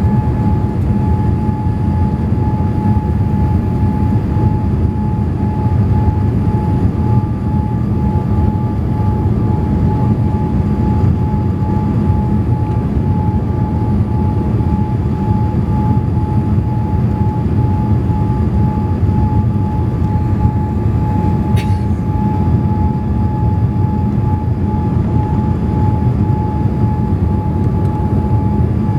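Boeing 787 cabin noise on approach: a steady rush of airflow and engines with a steady high whine over it, the hydraulic noise that the uploader puts down to the flaps once deployed. A brief click about three-quarters of the way through.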